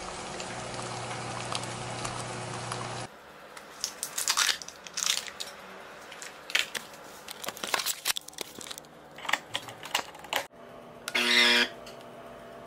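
Food sizzling in a frying pan for about three seconds, then crinkling and clicking as an illy coffee capsule is unwrapped and handled. Near the end an espresso capsule machine's pump buzzes briefly.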